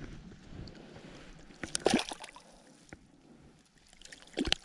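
Shallow water sloshing at the edge of a lake, with a brief splash about two seconds in and a few sharp knocks near the end.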